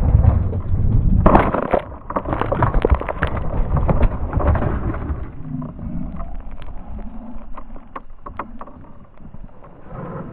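Dirt-bike crash heard from a helmet camera: the low, muffled rumble of the KTM 300 EXC two-stroke ride breaks about a second in into a burst of hard knocks and scrapes as rider and bike hit the rocky dirt. Tumbling impacts go on for a few seconds, then die down to scattered light knocks and rustling.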